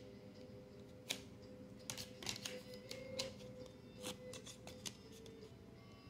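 Faint, scattered clicks and taps of a card being handled overhead, with faint background music.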